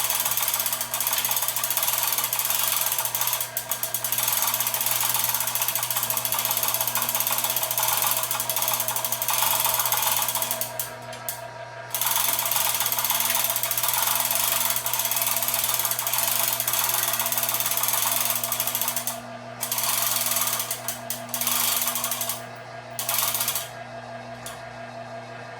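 Motorcycle lift running as it raises the bike: a steady motor hum with a ratcheting mechanical clatter. It stops for about a second near the middle and then stops and restarts several times near the end.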